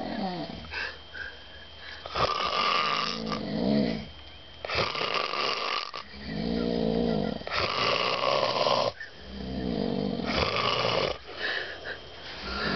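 A man snoring in his sleep, a rasping snore repeating every couple of seconds in a steady rhythm, with a throaty, pitched rattle in the breaths.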